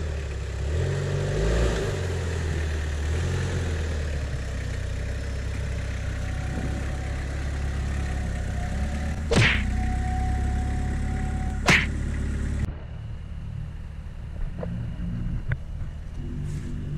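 Lifted Toyota Hilux pickup's engine running at low revs as it crawls over a snowy trail, its pitch shifting up and down in the first few seconds. There are two sharp cracks a couple of seconds apart in the middle. Near the end the sound drops suddenly to a quieter, more distant engine drone with faint ticks.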